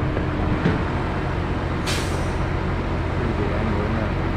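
Crane truck's engine running steadily while its crane lifts a log, with a short sharp hiss about two seconds in.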